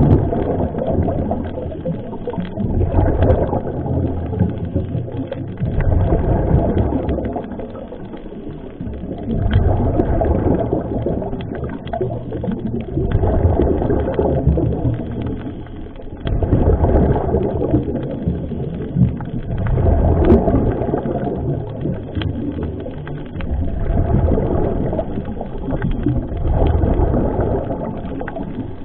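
Scuba diver's regulator breathing underwater: a swell of bubbling, rushing noise about every three to four seconds, one for each breath.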